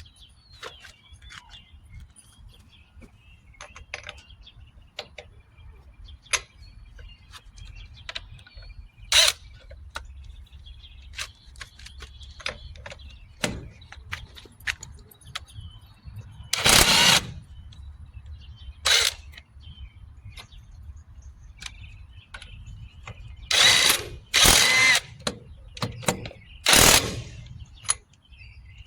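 Brushless cordless 1/2-inch impact wrench run in about six short bursts, the longest about a second and most of them in the second half, amid many small clicks and clatter of the tool and socket being handled.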